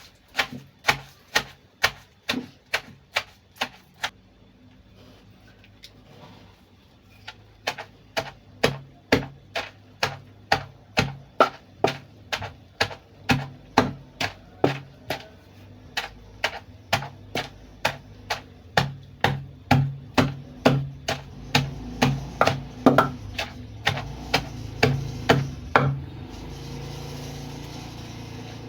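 Pestle pounding cassava leaves in a mortar: a steady run of dull strikes about two a second. The strikes pause for a few seconds early on, then go on until shortly before the end, when a steady low rumble is left.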